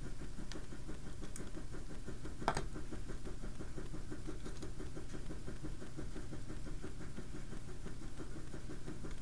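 Steady low background hum, with faint handling of plastic toy body pieces and one sharp click about two and a half seconds in.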